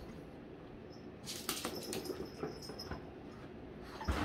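A quick run of light clicks and scuffling, starting about a second in and lasting a second and a half, with a short burst near the end: a pug's claws and paws on a laminate floor as it moves.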